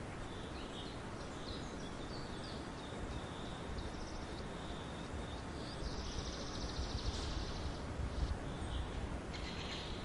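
Songbirds chirping in short high notes over a steady hiss of outdoor ambience. From about six seconds in, a rapid buzzing trill runs for about two seconds, with a low rumble beneath it.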